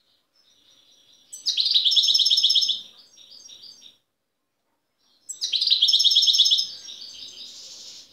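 European goldfinch singing: two loud phrases of fast, high twittering notes, one about a second and a half in and one about five seconds in, each trailing off into quieter twitter.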